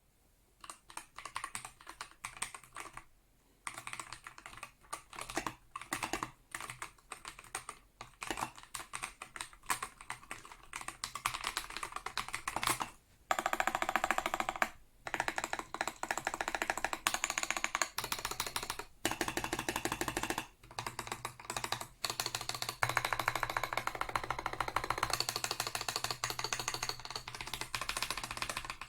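Typing on an Akko World Tour Tokyo R2 3098 custom mechanical keyboard: a stream of key clacks, sparser at first, then fast continuous runs from about halfway, broken by a few short pauses.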